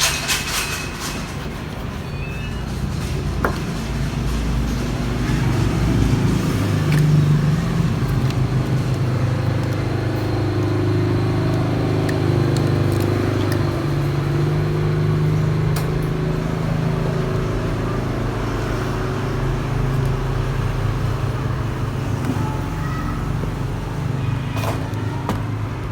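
A steady low motor drone with slowly shifting pitch, with a few sharp clicks near the start and near the end.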